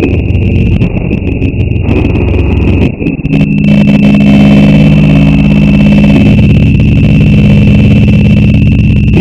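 Samsung logo jingle, pitch-shifted and heavily distorted with 'G Major' style audio effects: a loud, buzzing, clipped sound with a steady high whine over it. About three seconds in it turns into a steady low droning chord that holds.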